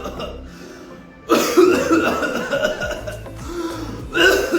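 Bouts of coughing in the pattern of whooping cough, given as a demonstration: a fit tails off at the start, a new bout begins about a second in, and another starts near the end.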